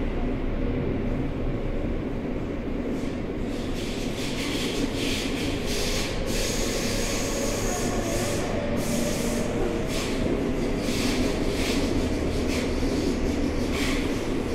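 Running sound inside a Seibu 6000 series subway train with Hitachi GTO-VVVF drive, moving through a tunnel: a steady rumble of wheels on rail with motor hum, and a hissing wheel-and-rail noise that comes and goes from about three seconds in.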